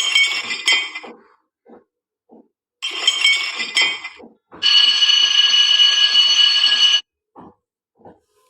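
Bell-like metallic ringing: two short clattering bursts, then a steady electric-bell ring lasting about two and a half seconds that cuts off suddenly, over soft short ticks repeating a few times a second.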